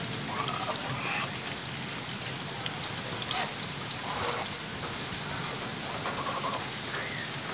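Steady rain falling on wet ground and puddle water, an even hiss throughout, with a few faint short calls over it now and then.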